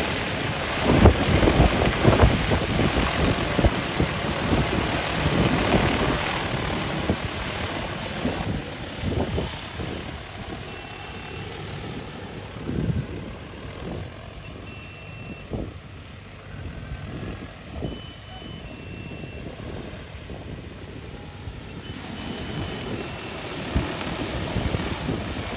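DJI Agras T40 agricultural drone's coaxial rotors whirring overhead. It is loud over the first several seconds, eases off through the middle, and grows louder again near the end as it comes in low.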